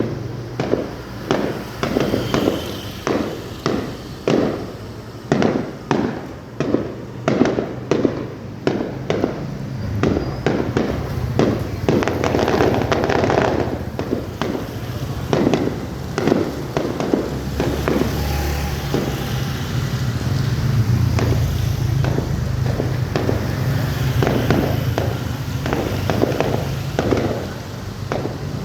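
Aerial fireworks bursting in quick succession, about two to three booms a second, with a stretch of dense crackle about halfway through.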